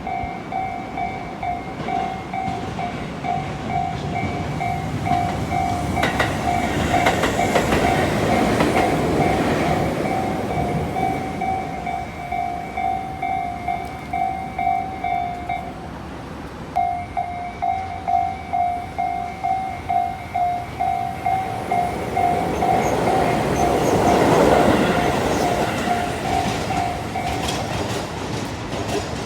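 Japanese railway level-crossing warning bell ringing, about two rings a second, while trains pass over the crossing with a rush of wheel and rail noise. The bell breaks off for about a second partway through, starts again as a second train passes, and stops near the end.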